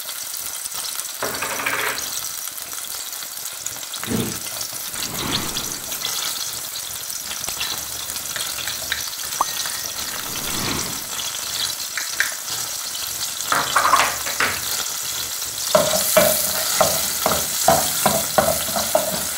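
Minced garlic sizzling in hot oil in a pot, a steady frying hiss. From about three-quarters of the way through a spoon stirs it, scraping the pot bottom in quick strokes about three a second.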